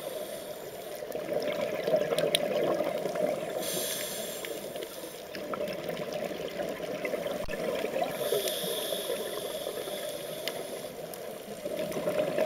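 Scuba regulator breathing underwater: two hissing inhalations, one about four seconds in and a longer one from about eight seconds, with bubbling exhalations between.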